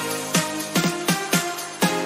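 Background electronic dance music with a steady kick-drum beat under held synth chords.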